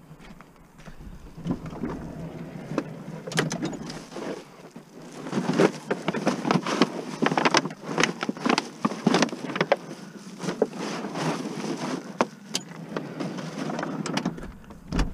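Clear plastic bags stuffed with empty plastic jugs and bottles being shoved and packed into a car, crinkling and crackling with many sharp plastic clicks, with a thump at the very end.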